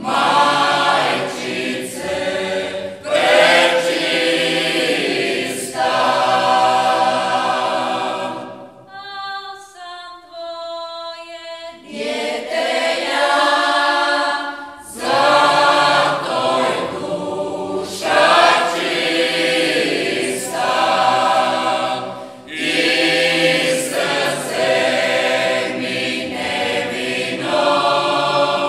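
A mixed vocal group singing a Marian hymn a cappella in the local folk-singing tradition, in phrases with short breaks between them. Partway through, a single voice carries a quieter line for a few seconds before the full group comes back in.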